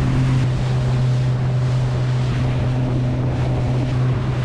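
A fishing boat's engine running steadily under way, a constant low drone, with wind buffeting the microphone and water rushing past the hull.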